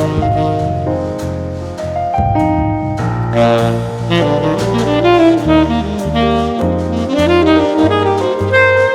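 Jazz background music led by a saxophone melody over a walking bass line.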